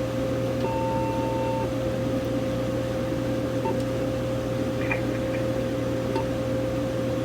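Uniden EXAI7980 cordless phone base's answering system giving one beep about a second long near the start, followed by a few faint button clicks, over a steady electrical hum.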